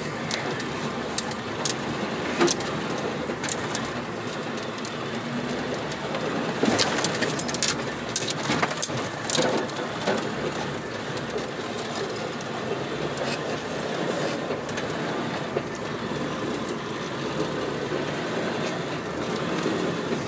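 Vehicle cab noise while rolling slowly downhill on a rough dirt track. A steady rumble of tyres and suspension runs under frequent rattles and knocks as the vehicle jolts over ruts, and these are thickest from about six to ten seconds in.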